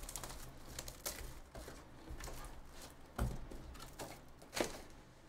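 Cardboard trading-card hobby boxes being handled and opened by hand: light rustling, scraping and clicking of cardboard and wrapper, with two sharper knocks about three and four and a half seconds in.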